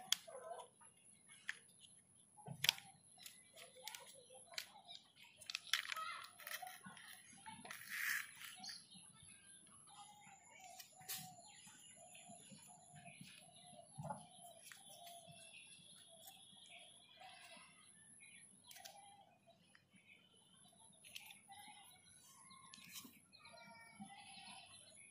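Light clicks and clatter of hard plastic toy-vehicle parts being handled and pried apart, with birds chirping in the background; a run of short repeated calls comes in the middle.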